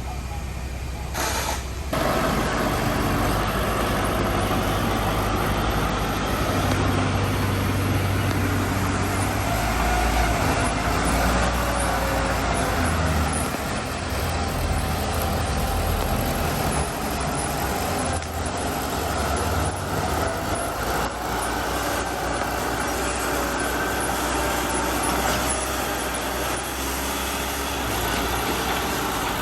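Heavy diesel engines of earthmoving machinery running continuously, the low engine note rising and falling as the machines work.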